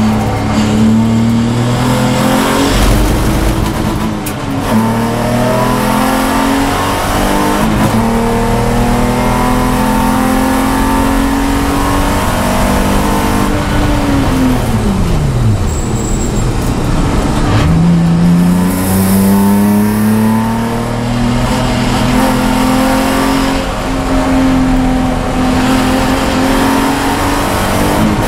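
Race car engine heard from inside the cockpit, pulling hard up through the gears with the revs climbing and stepping at each shift. About halfway through the revs fall steeply as the car brakes and downshifts, then it accelerates again.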